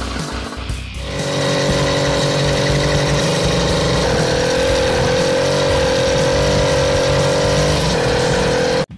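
Two-stroke engine of a motorized bicycle running at a steady speed while the bike is ridden. It starts about a second in and cuts off abruptly just before the end.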